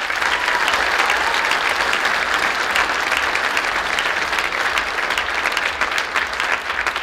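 Audience applauding, many hands clapping together, with a few whoops near the start; the clapping holds steady and begins to die away near the end.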